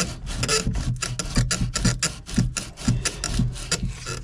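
Hand tool rasping back and forth on a PVC drain pipe in quick, even strokes, about six a second.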